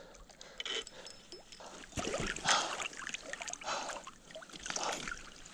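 Irregular splashing and sloshing of water from a large hooked splake thrashing at the shoreline while it is being netted. The stronger splashes come about two seconds in and again a couple of times later.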